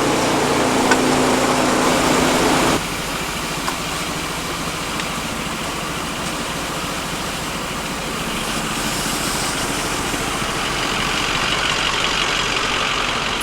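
Truck engine running with the scrap crusher's hydraulics being tried out after the teeth were adjusted. A steady hum cuts off suddenly about three seconds in, and a higher hiss grows louder toward the end.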